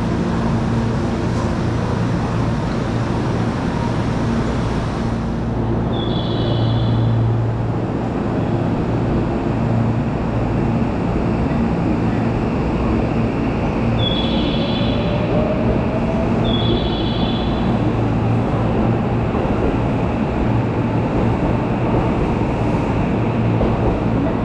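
Train station platform ambience: a steady hum and rumble from the trains and station machinery. A short high electronic chime sounds three times, and a faint whine rises slowly partway through.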